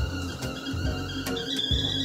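Stovetop kettle whistling at the boil, a steady thin whistle that jumps to a louder, higher note about a second and a half in.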